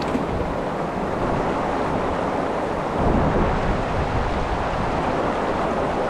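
Steady rush of flowing river water, a little louder about halfway through.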